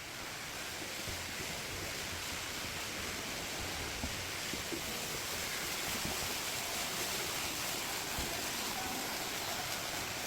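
A steady rushing hiss that swells for about a second and then holds even, with no distinct events.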